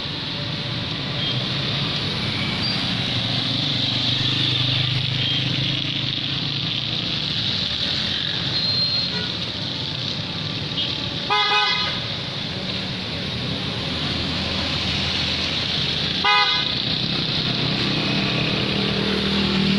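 Road traffic on a wet street: a steady engine hum with tyre hiss. A vehicle horn honks twice, a half-second toot about eleven seconds in and a shorter one about five seconds later.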